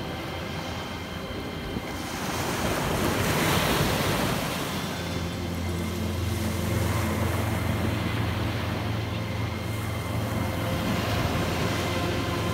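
Sea waves breaking and washing up on the shore, with wind buffeting the microphone. The surf swells loudest about three to four seconds in, and a steady low wind rumble sets in from about five seconds.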